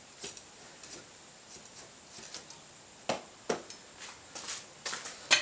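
Light metal clicks and taps of steel padlock parts being worked and knocked to free a freshly riveted joint, with two sharper knocks about three seconds in and a louder strike at the very end.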